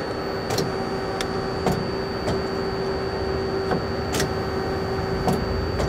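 Steady machine hum at one pitch with a faint high whine, broken by scattered light clicks and knocks.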